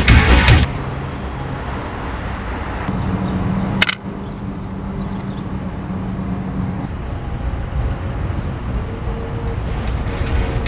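Music cuts off about half a second in and gives way to city street traffic noise. A steady low hum runs for a few seconds and a single sharp click comes about four seconds in. Music comes back near the end.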